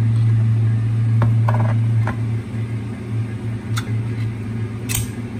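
A steady low mechanical hum from a running kitchen appliance, with a few light clicks and clinks of kitchenware being handled, the sharpest near the end.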